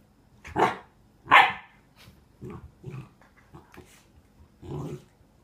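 Nine-week-old Doberman puppy barking at an ice cube: two sharp barks about a second in, the second the loudest, then several quieter, shorter ones.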